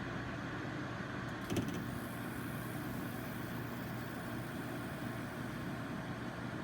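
SereneLife 10,000 BTU portable air conditioner running with a steady hum and rush of air. A brief knock about a second and a half in.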